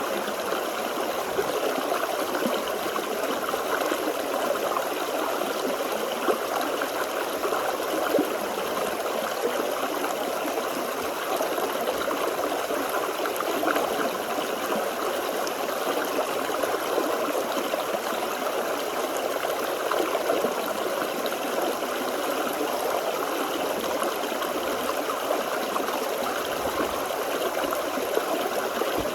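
Small forest stream flowing steadily over rocks, a continuous even rush of water with a light babble.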